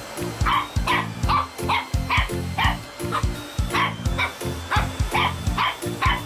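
A Shih Tzu puppy barking and yipping repeatedly, two or three short barks a second, over background music with a steady beat.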